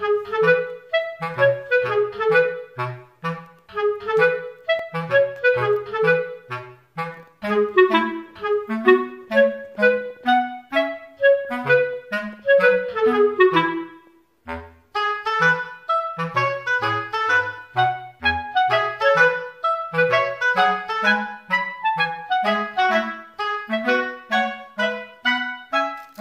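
Background music led by a clarinet playing short, detached notes over a bass line; it breaks off briefly about halfway through, then starts again.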